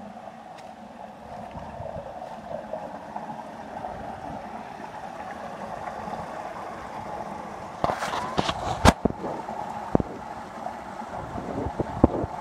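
Creek water running over rocks and small cascades, a steady rush. About eight seconds in comes a quick burst of sharp knocks and clicks, with a few more near the end.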